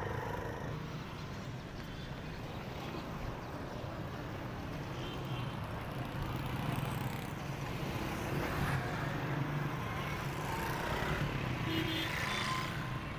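Motorcycle ride through city traffic: the bike's engine running under a steady rumble of road and traffic noise, with other cars and motorbikes passing close by, a little louder in the second half.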